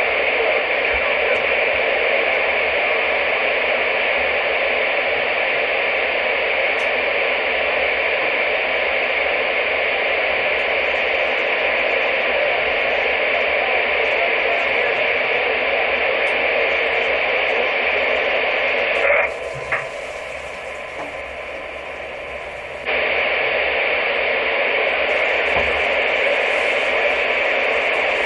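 Steady radio static hiss. About two-thirds of the way through it drops away for some four seconds, then comes back suddenly at full strength.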